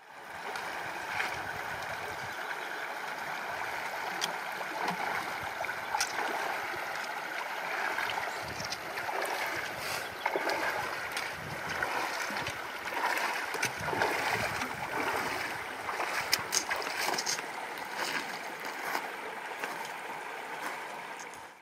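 A shallow, rocky river riffle running steadily, with the splashing steps of a backpacker wading across it with trekking poles; short sharp splashes come and go, more of them in the second half.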